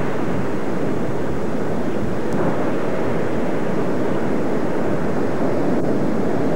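Ocean surf breaking on shoreline rocks: a steady rushing noise, mixed with wind on the camcorder microphone.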